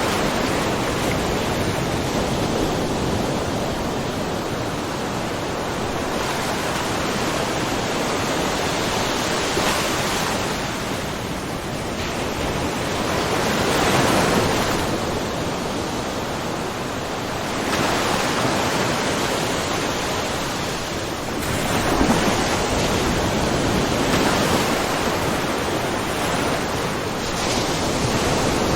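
Small ocean waves lapping and splashing in a shallow rocky cove, a continuous wash that swells as each wave comes in, about every four seconds.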